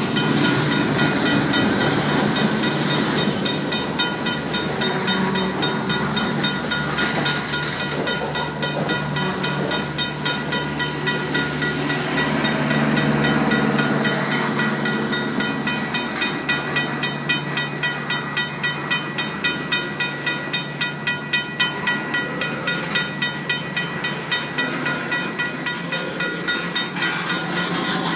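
Freight cars rolling past close by at a grade crossing, their wheels running on the rails. Over them the crossing's RACO mechanical bell rings steadily at about three strikes a second.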